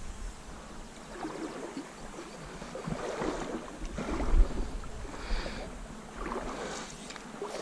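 River water sloshing and splashing around the legs of a fly angler wading in a shallow stony river, in uneven surges.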